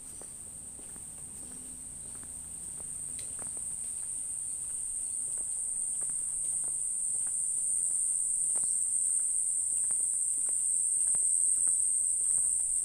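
A steady high-pitched insect trill, such as crickets or cicadas, slowly growing louder, with faint scattered clicks beneath it.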